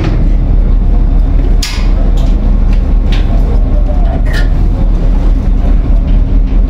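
A ferry's engine running steadily under way: a loud, continuous low rumble with a few short knocks and clicks over it.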